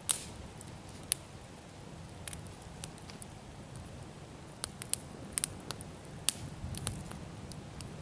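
Wood campfire crackling, with irregular sharp pops and snaps over a low steady rumble of burning.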